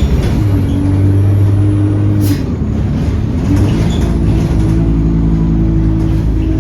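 Diesel engine of a Stagecoach single-decker bus running under way, heard from on board as a steady engine note. About two seconds in there is a short hiss of air and the note dips briefly, then picks up again slightly higher.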